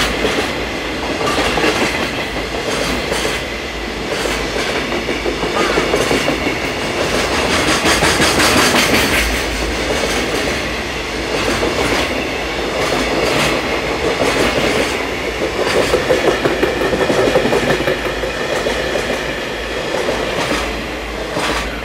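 Wagons of a long container freight train rolling past, the wheels clattering over the rail joints in a repeated clickety-clack. The sound falls away near the end as the last wagons go by.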